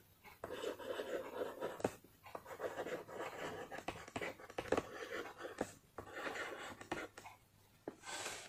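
Stylus writing on a tablet screen: short scratchy strokes with light taps, coming in bursts with brief pauses between words.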